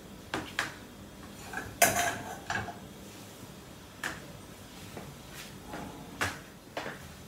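Scattered clinks and knocks of a spoon, small bowls and containers being handled and set down on a tray by the stove, loudest in a cluster about two seconds in.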